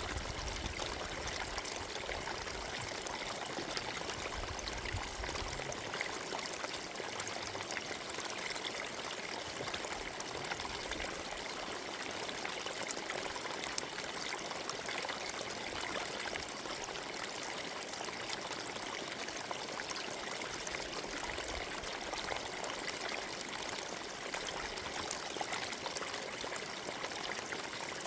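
Forest stream running over stones: a steady babble and trickle of flowing water.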